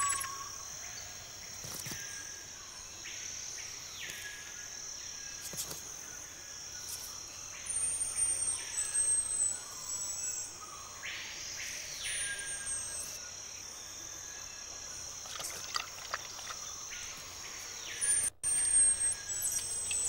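Marmosets giving very high, thin whistled contact calls a few times as the family moves, each calling out its location, over a steady high drone of rainforest insects.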